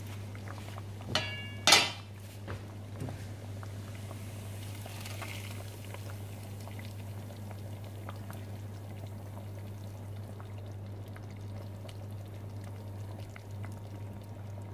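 A pot of masoor dal boiling, with two sharp metal clanks of pan on pot, the second ringing, a little under two seconds in, as the hot tempering of oil, garlic and chilies is poured into the dal.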